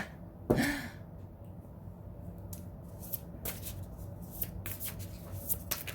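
A tarot deck being shuffled by hand: a run of short card flicks and riffles, with one louder brush about half a second in.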